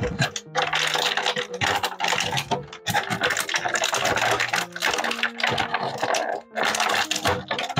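Action figure packaging being opened and handled: dense crinkling and crackling with many small clicks, broken by a few brief pauses.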